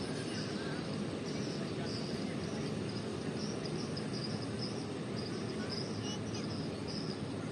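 Steady rushing of river water churned into waves, with a high chirping repeating about twice a second above it.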